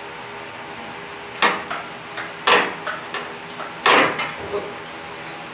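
Three loud knocks about a second apart, each with a short ringing tail, with a few lighter ticks between them, over a steady background hum.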